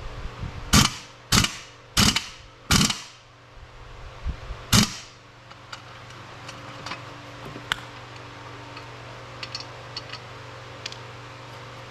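Sharp metal-on-metal strikes, four in quick succession and one more a couple of seconds later, each with a short ring, as a stuck part on a car water pump is knocked at. After them come a few faint clicks of tools being handled.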